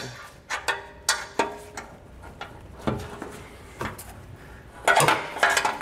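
Steel pry bar clinking and tapping against the exhaust hanger and rubber isolator as it is worked in behind the hanger: scattered sharp taps, then a louder metallic clatter with a short ring about five seconds in.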